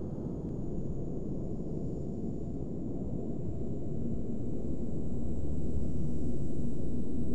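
A low rumbling drone that swells steadily louder, with a low steady hum joining it about four to five seconds in.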